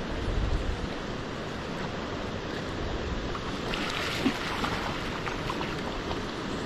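Steady rush of river current, with wind buffeting the microphone in the first second. From about four seconds in, a hooked fish splashes and thrashes at the surface near the bank.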